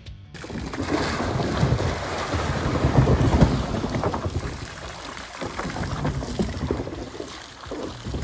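Fountain water splashing and running into a shallow basin, mixed with wind rumbling on the microphone. It is loudest around three seconds in and eases off after about four and a half seconds.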